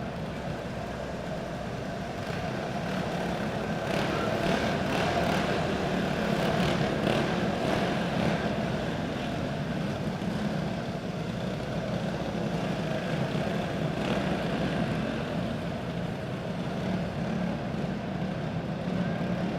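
Racing kart engines running at low speed under a red flag, a steady drone that grows louder for several seconds about three seconds in.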